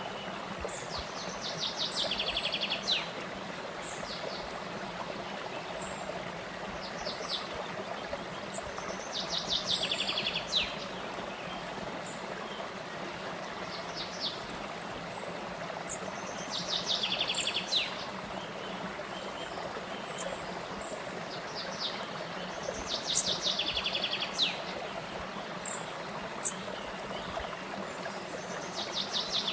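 Shallow stream flowing over small rocky cascades, a steady rush of water. Over it a songbird sings a fast trill that falls in pitch, repeated every several seconds, with short high chirps between.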